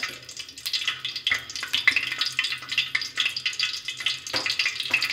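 Hot cooking oil sizzling and crackling in a steel pot, with many small irregular pops: the oil is at frying heat.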